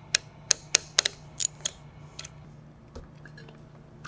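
Sharp metal clicks and clinks, about nine of them at uneven intervals over the first two seconds, as the 7/16 bolts holding a vacuum pump's cartridge are worked loose and handled.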